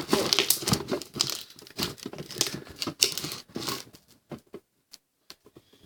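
Butter slime mixed with soft clay being squeezed and worked by hand, with a dense run of small crackling pops as air bubbles in the slime burst. The pops thin out to a few scattered ones after about four seconds.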